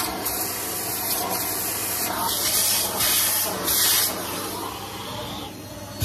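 Numatic Henry canister vacuum cleaner running, a steady airy hiss of suction through the hose and wand, rising in brief surges a few times.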